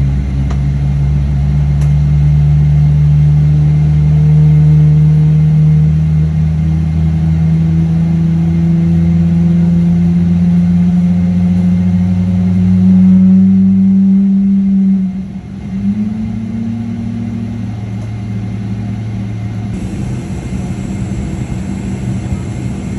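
A Boeing 777-300ER's GE90 turbofan spooling up during engine start, heard from inside the cabin. A loud low drone rises steadily in pitch for about fourteen seconds, dips sharply, then settles into a steadier, quieter hum, and a faint hiss joins near the end.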